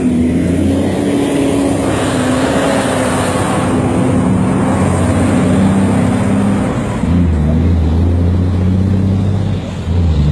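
A car engine running steadily, with a rush of road noise that swells about two seconds in and fades around seven seconds in.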